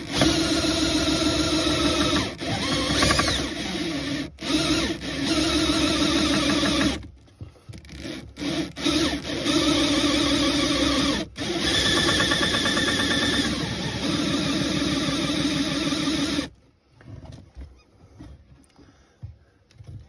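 Electric drill spinning a hole saw as it cuts through the plastic wall of the HVAC heater box. The drill runs steadily, stops about seven seconds in for a few short bursts, runs steadily again, and cuts off about three-quarters of the way through.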